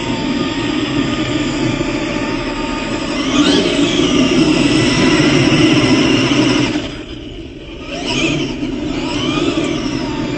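Traxxas X-Maxx electric RC monster truck, with a Castle XLX-driven 2028 brushless motor on 8S, doing donuts on dirt and gravel. The motor whine rises and falls with the throttle over the noise of spinning tyres. About seven seconds in the throttle drops off for a moment, then the whine picks up again.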